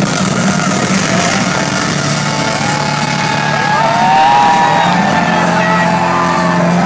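Loud live electronic dance music with a steady, stepping bass line, and crowd voices calling out over it in the middle.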